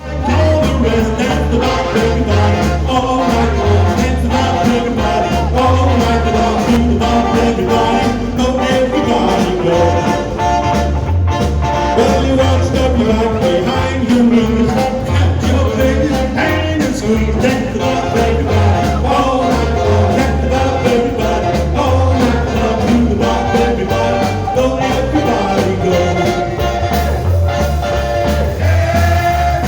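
Live band playing, with a steady bass beat.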